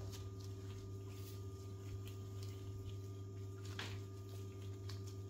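Steady low electrical hum with faint, soft handling sounds and a few light clicks as dough is worked by hand.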